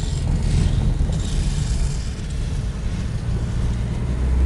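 A car driving slowly on a snowy road, heard through an open door or window: steady engine rumble with wind on the microphone and road hiss. The engine note grows a little louder near the end.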